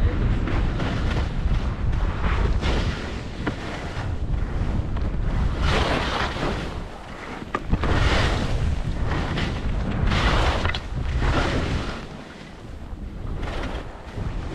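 Wind buffeting the microphone during a ski descent, with skis scraping and hissing across packed snow in a swell every second or two as each turn is carved.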